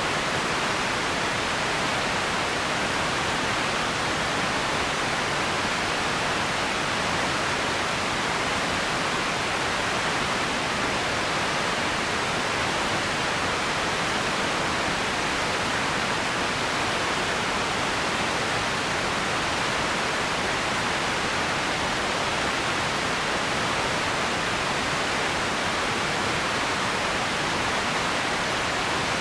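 Empty ambience noise: a steady, unchanging hiss, strongest in the middle range, with no distinct events.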